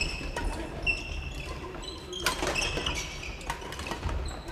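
Sneakers squeaking and footsteps thudding on a wooden gym floor, many short high squeaks and sharp knocks from several players moving at once.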